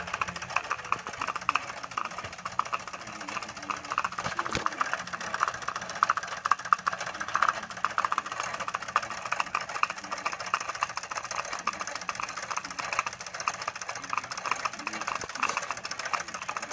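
Small live-steam model engine with a double-acting cylinder running fast, making a rapid, even ticking chuff and clatter along with the Erector-set gearing it drives. One sharper knock comes about four and a half seconds in.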